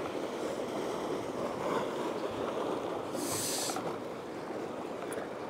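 Surf washing against a rocky shore, a steady rushing wash with wind on the microphone, and a brief high hiss about three seconds in.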